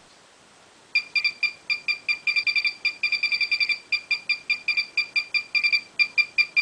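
Bricon electronic pigeon-timing system bleeping rapidly and repeatedly, short high electronic beeps several times a second, starting about a second in. Each bleep signals that a pigeon's timing chip has been detected by the antenna pad, here through a block of wood.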